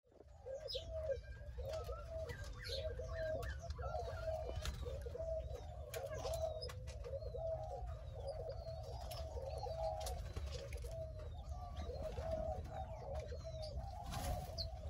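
Several doves cooing continuously in overlapping, repeated phrases, with a few higher chirps from small birds and a steady low hum underneath.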